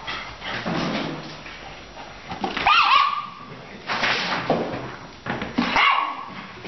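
Dog barking several times in play, the loudest bark about three seconds in.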